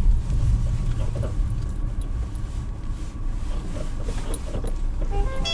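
Cabin road rumble of a Nissan Rogue / X-Trail T32 driving over bumps, with the front suspension squeaking. The owner traces the squeak, which appears in freezing weather, to the front shock strut's bump stop.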